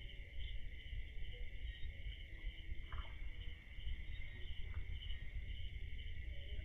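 Crickets chirping steadily in a continuous high chorus, over a low rumble.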